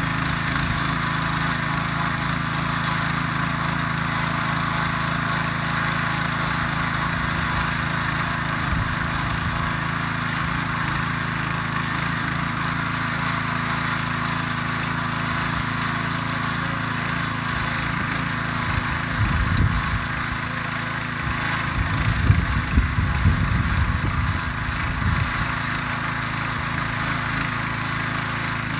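Ruris DAC 7000 ACC2 motor hoe running steadily under load as its rotary tines churn dry garden soil, with a few louder, uneven low rumbles about two-thirds of the way through.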